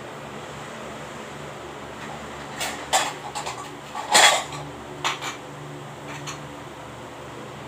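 Dishes and cutlery clattering and clinking in a short series of knocks, loudest a little after four seconds in, over a steady low hum.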